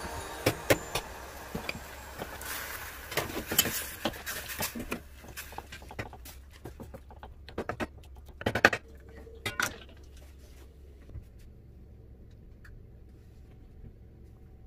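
Kitchen handling noises at an aluminium pan: taps and clatter with a busy rustling stretch as shredded daikon and carrot go into the hot liquid and are stirred with a wooden spatula. A loud cluster of knocks comes about eight and a half seconds in, then only faint scattered ticks.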